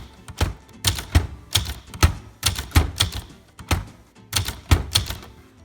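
Type bars of a 1964 Brother De Luxe manual portable typewriter striking the paper in an even run of keystrokes, about two to three a second, typing out an alignment test. The keystrokes stop shortly before the end.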